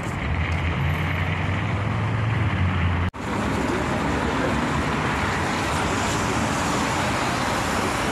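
Steady city road traffic noise, with the low drone of a nearby vehicle engine over the first three seconds; the sound breaks off abruptly about three seconds in and goes on as a steady wash of passing traffic.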